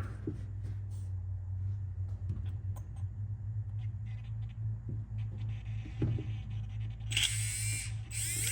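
Traxxas Velineon 3500 brushless RC motor, freshly rebuilt with new bearings, running with no pinion gear fitted: a low steady hum with a few light clicks, then about seven seconds in it spins up to a loud, wavering high-pitched whine. The owner hears it as much better than before the bearing replacement, though he thinks some debris is still inside.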